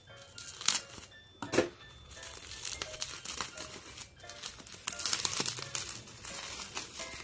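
Bubble wrap crinkling and rustling as hands peel it off a paperback manga volume, in irregular bursts with the longest stretch about five seconds in.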